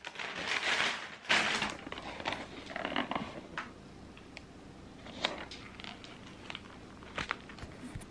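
Packaging being handled: rustling of plastic film and a cardboard box for the first second and a half, then quieter crinkling with a few light clicks and knocks.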